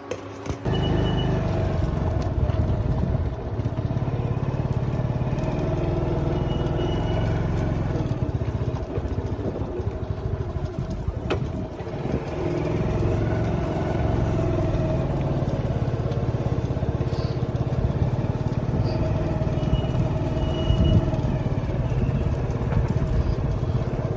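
Motorcycle engine running while riding along, its pitch slowly rising and falling with speed, under a heavy low rumble of wind on the microphone.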